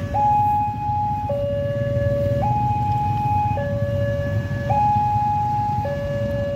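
Railway level crossing warning alarm sounding a two-tone electronic signal, alternating a higher and a lower tone about once a second, the signal that a train is coming and the barrier is closing or closed.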